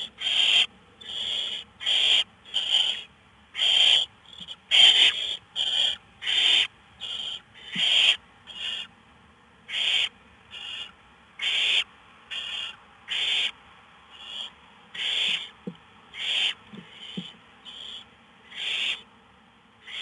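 Barn owl nestlings giving a run of short, rasping hiss calls, about one and a half a second, irregular and overlapping.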